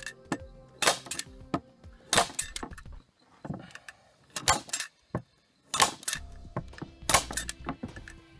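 Staple gun firing staples into the pine corner joints of a canvas stretcher-bar frame: five sharp snaps spaced one to two seconds apart, with lighter clicks of the tool being handled and set down between them.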